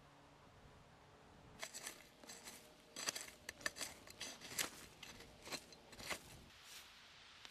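Radius hand weeder's metal blade scraping and slicing through dry, crumbly soil around weeds: a quick, irregular run of scrapes that starts about a second and a half in and stops shortly before the end.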